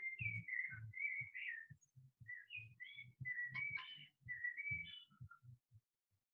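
A series of clear, high whistle-like notes in short phrases, mostly holding one pitch with a few jumps higher, over soft low thuds. They stop about five and a half seconds in.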